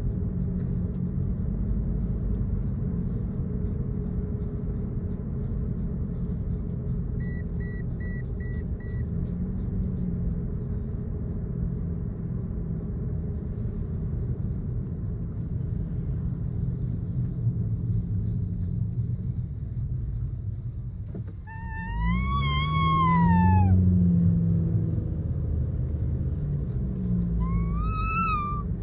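Steady car road-noise rumble inside the cabin, with four short beeps about seven seconds in. Later a Samoyed puppy gives a loud whine-howl that rises and falls over about two seconds, then a shorter rising whine near the end.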